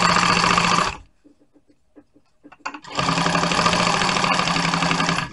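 Industrial sewing machine with a welting (piping) foot stitching welt cord piping into vinyl, running at a steady speed. It stops about a second in, and after a pause with a few faint clicks it starts again near the three-second mark and runs until just before the end.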